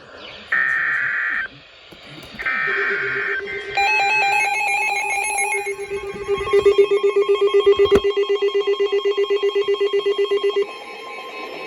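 Emergency Alert System activation: two short screeching bursts of SAME digital header data, then a pulsing alert tone with a stepped run of higher tones, beeping about eight times a second and cutting off shortly before the end. A single sharp click falls midway through the beeping.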